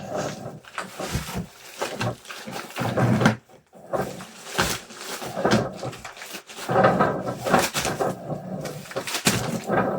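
Packaging being handled by hand: irregular rustling and scraping with short knocks and clicks.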